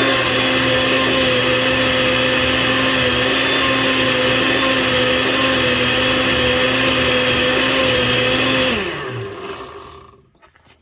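Electric blender running steadily, pureeing salsa verde, then switched off nearly nine seconds in, its motor winding down to a stop.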